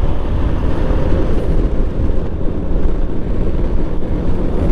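Wind rushing over the helmet microphone of a moving motorcycle, a loud steady rumble with the engine running underneath.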